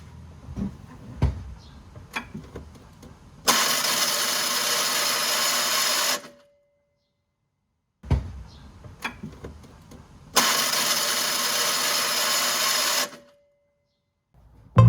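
Classic Fiat 500 starter motor run twice, each time a steady whir of about two and a half seconds that cuts off abruptly, with light clicks and knocks between the runs.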